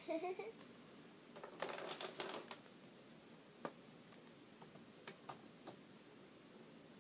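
Light clicks and taps of small plastic toy figures being set down and moved against a plastic playhouse, with a brief rustling scrape about two seconds in. A short high voice sound comes at the very start.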